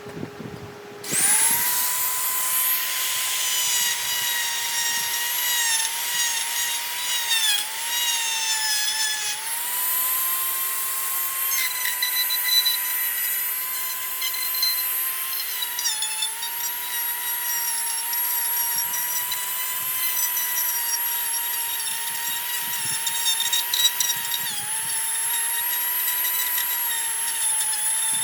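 High-speed electric power tool spinning up about a second in and running with a steady high whine, its pitch dipping briefly several times as it bites into the wood.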